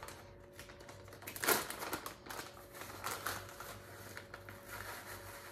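Plastic bag of shredded cheddar cheese crinkling and rustling as it is handled and opened, with a sharper crackle about a second and a half in.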